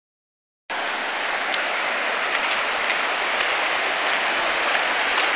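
Steady rush of running water, starting abruptly under a second in, with faint small splashes over it.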